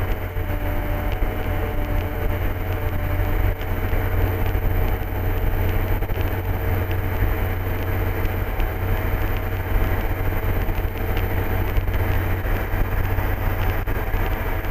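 Steady drone of an MD3 Rider ultralight's engine and propeller in flight, heard inside the cockpit, with a thin high whine over it.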